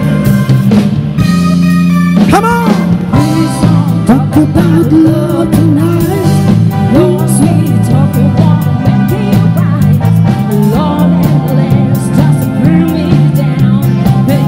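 Live band playing an upbeat dance number: a singer's vocal line over a drum kit, bass line, keyboard and electric guitar, with the vocal coming in about two seconds in.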